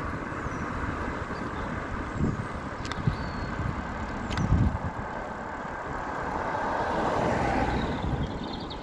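Wind rumbling on the microphone and road noise while riding along a street, with a few dull knocks about two, three and four and a half seconds in, and the noise swelling a little around seven seconds in.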